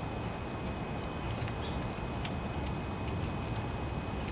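Faint, irregular light clicks of small metal carburetor parts, a brass float on its hinge pin, being handled and settled into place by gloved fingers, over a steady low background rumble.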